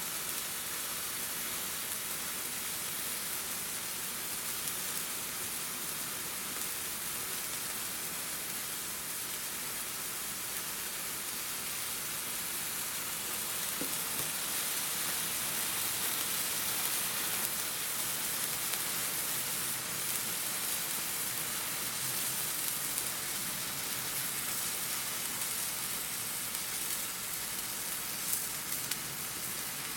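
Several Phantom neon sparklers burning at once, giving a steady, high fizzing hiss, with a few sharper crackles near the end.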